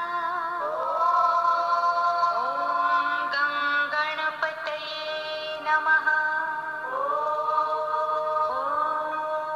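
Devotional mantra chant sung in long held notes that slide up into pitch, over a steady low drone, with a few sharp strikes in the middle.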